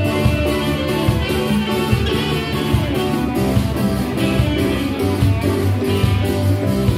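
Live band playing: electric guitar over bass, drum kit and congas.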